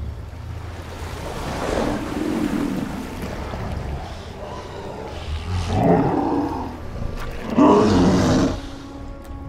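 Film sound effects of Kong, the giant gorilla, growling low three times over the wash of river water. The last growl, as he bites into a giant squid's tentacle, is the loudest.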